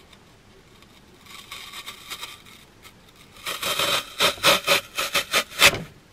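Scraping and rubbing of a twig branch being pushed and worked down into a block of floral foam in a pot. A soft rub comes about a second in, then over the second half a run of louder scrapes, about four a second.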